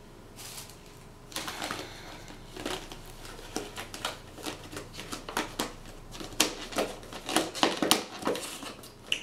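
Clear plastic lid crackling and snapping as it is pressed onto a black plastic takeout container: a run of irregular clicks, starting about a second and a half in and busiest and loudest near the end.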